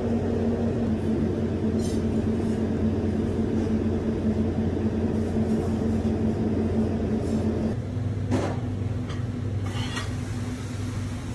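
Steady mechanical hum of commercial kitchen equipment, with a few faint light clicks; the hum's tone shifts a little about three-quarters of the way through.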